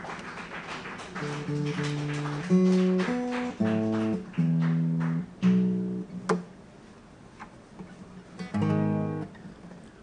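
Acoustic guitar played solo: a run of plucked notes and chords that ring out, loudest in the middle, then thinning after about six and a half seconds, with one last chord near the end.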